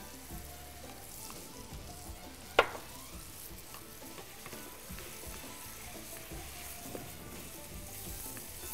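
Shrimp and chopped vegetable filling sizzling in a metal pan on a gas stove while it is stirred with wooden spatulas. One sharp knock comes about two and a half seconds in.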